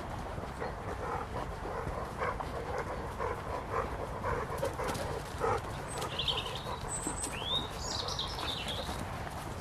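A dog making a quick run of short, repeated sounds for about five seconds. A few bird chirps follow near the end.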